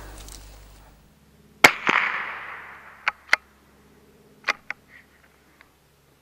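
A single .22LR rifle shot cracks about a second and a half in and echoes away over the next second or so. It is followed by a series of short metallic clicks, the bolt of the Lithgow LA101 bolt-action rifle being worked to chamber the next round.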